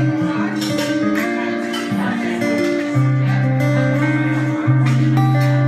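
Acoustic guitar strummed in a steady rhythm, with chords ringing over a low bass note that changes every second or two.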